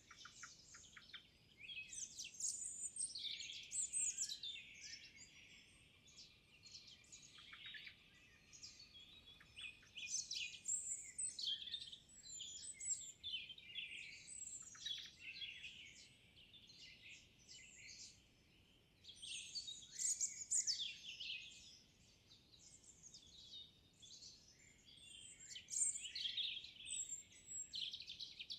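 Several songbirds singing at once, in overlapping high, rapid phrases that swell and fade every few seconds.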